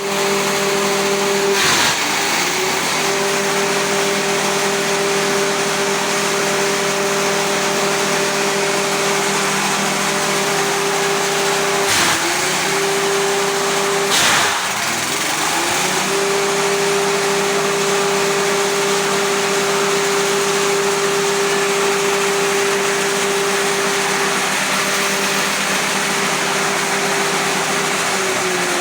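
Grass chopper machine running at a high, steady speed. Its pitch sags briefly three times with a burst of noise as it is loaded, typical of forage being fed through the cutter.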